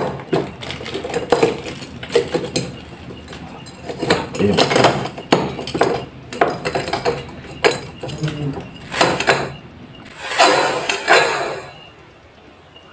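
Ice cubes poured from a plastic bag into a tall drinking glass, clinking and clattering against the glass in several irregular bursts, with the plastic bag crinkling as it is shaken out.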